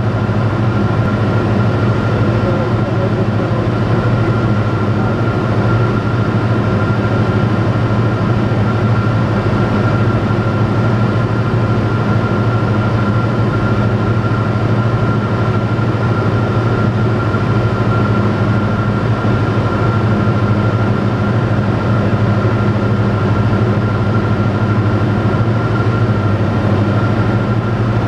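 Robin DR400 light aircraft's piston engine and propeller droning steadily in flight, heard from inside the cockpit, with a thin steady high tone above the drone.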